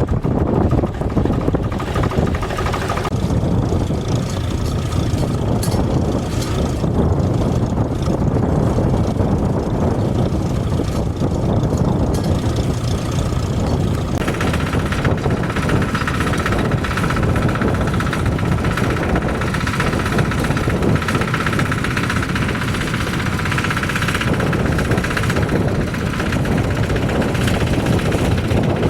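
Vintage tractor engine running steadily, with a higher steady whine joining about halfway through.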